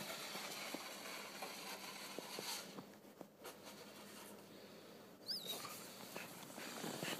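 Faint crunching and scuffling of an Australian shepherd puppy's paws moving through snow, with a short, high, wavering squeak about five seconds in.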